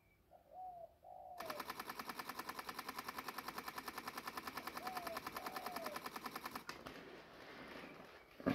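Camera shutter firing in a rapid, even continuous burst for about five seconds while shooting a handheld macro focus stack with flash. The burst ends abruptly, and a single thump follows near the end.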